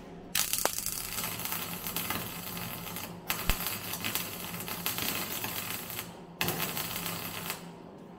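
MIG welder arc crackling as a zinc-coated steel brace is welded into a car bodyshell: three runs of steady crackle, about three seconds, three seconds and one second long, with short breaks between.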